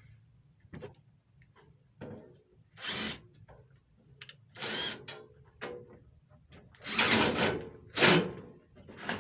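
Power drill-driver running in about five short bursts, driving in the screws that hold the air handler's cover panel. The longest burst lasts about a second.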